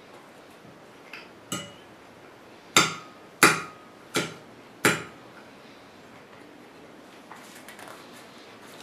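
A metal fork striking and spearing food on a glazed ceramic plate: six sharp clinks with a short ring, between about one and five seconds in, the middle two loudest.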